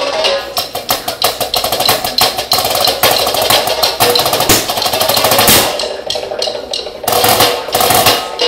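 Drumsticks playing a fast marching snare solo on a rubber practice pad: dense rapid strokes and rolls, easing off briefly about six and a half seconds in, then loud accented strokes again.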